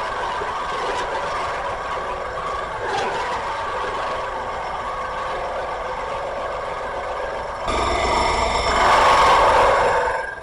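Drill press running a 3-inch hole saw cutting into a wooden board, with a steady whine. About eight seconds in, the cut grows louder and harsher for a couple of seconds, then falls away sharply at the end.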